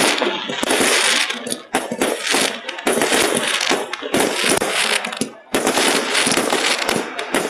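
Aerial fireworks shells bursting and crackling in a dense rapid run of bangs and crackle that breaks off and starts again suddenly several times. The sound is squashed by a phone's heavy audio compression.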